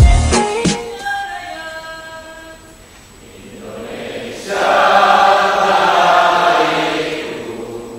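Music ends just after the start, its last notes ringing out and fading. About four seconds in, a crowd of many voices chants together loudly for about three seconds, then trails off.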